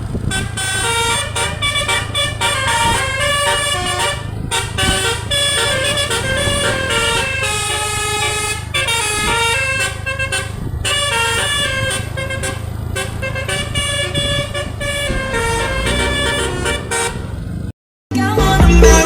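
Bus telolet, a Basuri-type musical air horn, playing a tune of many short, stepped notes over a low engine rumble. Near the end it cuts off and louder music starts.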